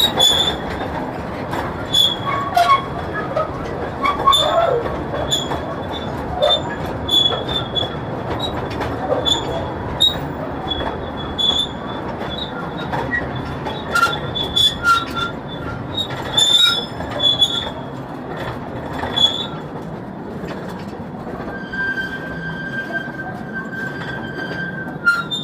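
Mine tour train running on its rails with a steady rumble, its wheels squealing in short high screeches again and again; a longer steady squeal comes near the end. The squealing is the sign of dry, unlubricated wheels.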